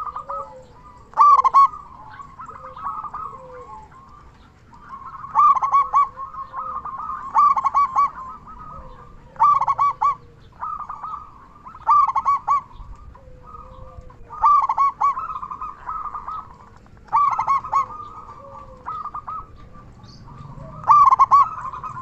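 Zebra dove (perkutut) singing: a loud, repeated cooing phrase of quick pitched notes, starting again every two to three seconds.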